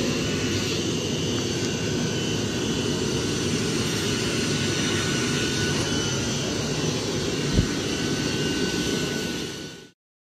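A steady mechanical roar with a faint high whine running through it. One thump about three-quarters of the way in, and the sound cuts off abruptly just before the end.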